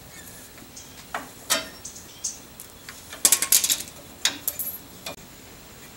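Hand tools clinking and clicking on drum-brake hardware during disassembly: scattered sharp metallic knocks, with a quick run of rapid clicks a little past halfway.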